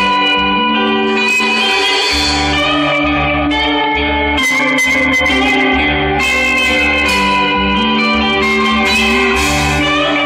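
Live rock band playing loudly: electric guitars holding sustained notes over bass and drums, with frequent cymbal hits.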